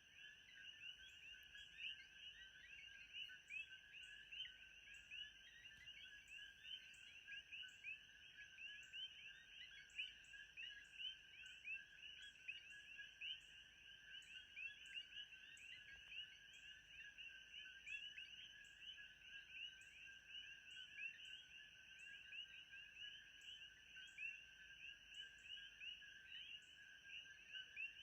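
Faint, dense chorus of animal calls: many short, quick chirps overlapping without pause, with a thin steady high tone and a faint regular ticking above them.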